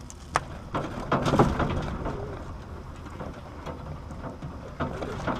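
Clicks and a crackling rustle from electrical wires being handled and trimmed with pliers. The rustle is loudest about a second in.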